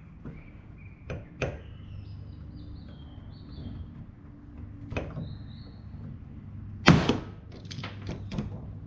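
A few light clicks from a paintless dent repair mini lifter being squeezed on a glue tab stuck to a car hood, then about seven seconds in one loud sharp pop as the glue tab lets go of the panel, followed by a few small clicks of the tool.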